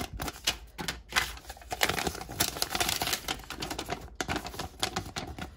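Paper instruction leaflet being unfolded and handled, giving a rapid, irregular run of crisp crinkles and rustles with a couple of brief pauses.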